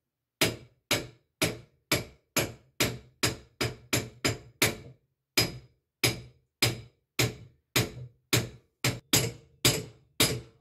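Repeated sharp knocks of a lathe handle used as a makeshift hammer, tapping the TWIN mill-drill's spindle head to drive the spindle out and reach its bearings. Around 25 strikes at two to three a second, with a short pause about five seconds in.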